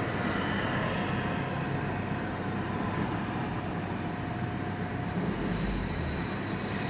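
Steady engine and road noise heard from inside a moving vehicle's cab, with a deeper low rumble coming in about five seconds in.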